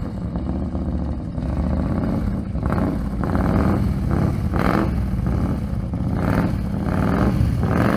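Large touring motorcycles idling and running at a crawl, a steady low engine rumble with several brief louder bursts over it.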